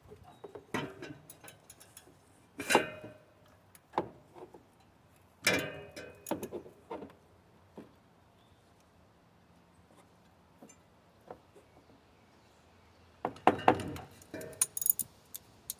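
Metal hand tools (socket wrench and extension) clinking and knocking against the engine while water pump bolts are being worked loose, in scattered bursts with a quiet stretch in the middle.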